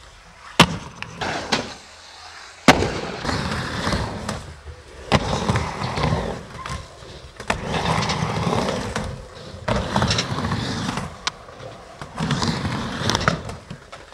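Skateboard riding wooden ramps: stretches of rumbling wheel noise broken every second or two by sharp clacks as the board pops, hits the coping and lands.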